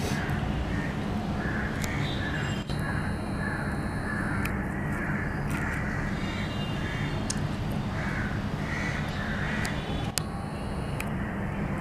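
Crows cawing again and again over a steady low rumble, with a sharp click a little over two seconds in and another about ten seconds in.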